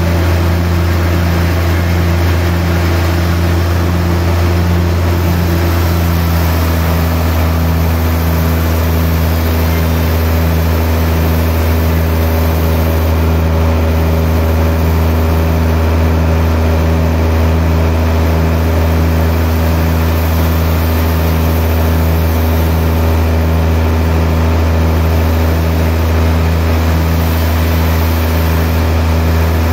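Large sawmill band saw running steadily while it cuts through a big log: a constant low hum with a faint regular pulse. About six seconds in, one of its tones gives way to a slightly lower one.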